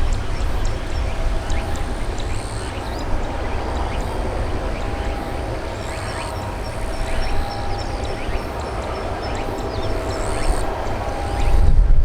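Airbus A320-200 jet engines running at a distance with a steady whine, over a strong low rumble. Short high chirps are scattered throughout.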